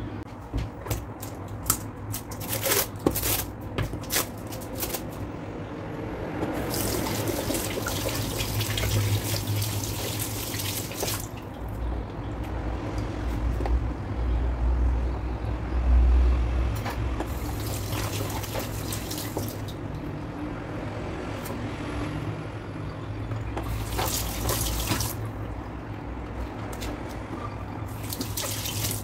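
Kitchen tap running into a sink in spells, water splashing as long eggplants are rinsed and rubbed by hand. A few sharp knocks and clicks come in the first few seconds, with a steady low hum underneath.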